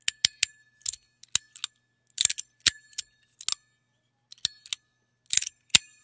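Magnetic fidget slider with stainless steel plates and a built-in tuning fork, slid back and forth: sharp, irregular metallic clicks as the magnets snap it into place, about a dozen of them. Many are followed by a thin high ring from the tuning fork.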